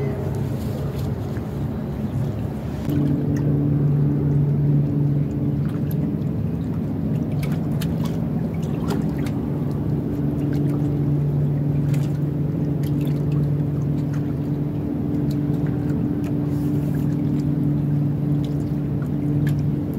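A boat engine running at a steady, even pitch, a low hum that comes in about three seconds in and holds, with a few faint clicks over it.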